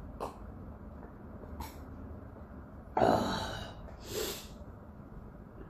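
A person's loud, sudden breath out after drinking beer, about three seconds in, followed by a second, weaker breath about a second later.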